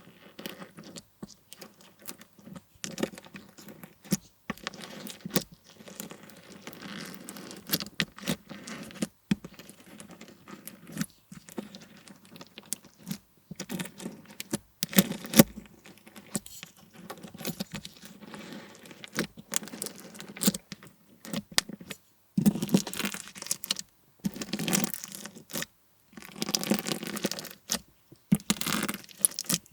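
Hands working a clear slime packed with slushie beads, making dense crunchy crackling and clicking with sticky tearing sounds. There are louder bursts of crackle in the last third.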